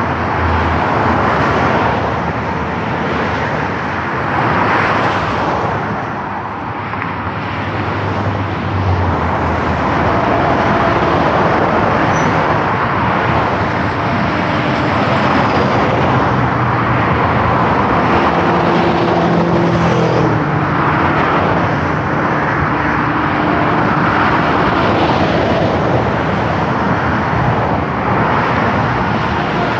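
Dense high-speed motorway traffic: a continuous rush of tyres and engines that swells and eases as cars pass. A low engine hum rises and falls about two-thirds of the way in.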